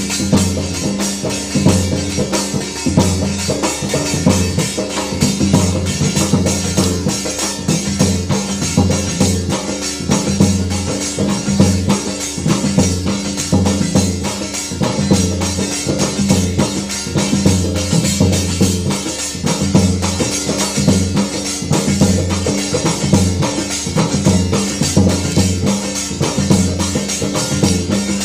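Marwari gair dance music with a steady, driving drum beat and jingling percussion, running without a break.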